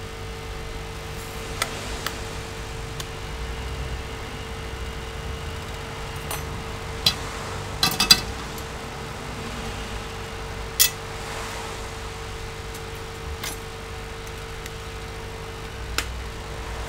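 Scattered light clicks and taps of hands handling a laptop's plastic and metal casing, with a small cluster of clicks about halfway through, over a steady electrical hum.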